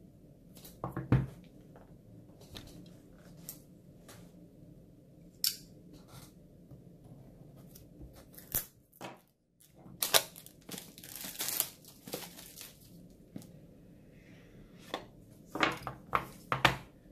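Small cardboard product box being handled and opened on a wooden table: scattered taps and clicks, with a run of tearing and cutting sounds about ten seconds in as the seal is opened, and more clicks near the end as the lid comes off.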